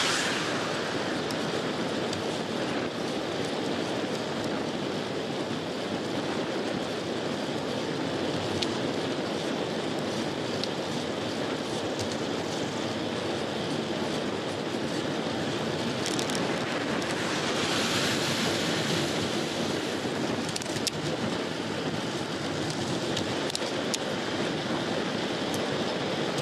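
Steady rush of wind over a handlebar-mounted camera microphone, mixed with road bike tyre noise on the road, with a few light clicks. The hiss swells briefly about two-thirds of the way through.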